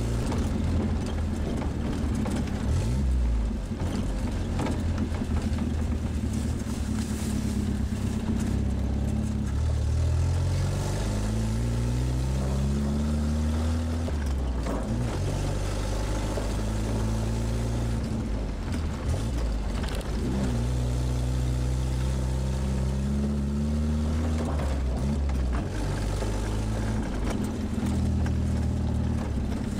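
1957 Škoda 440 Spartak's four-cylinder engine running under way, heard from inside the cabin with road noise. Its pitch climbs twice as the car accelerates, about ten seconds in and again about twenty seconds in, each climb breaking off as a gear is changed.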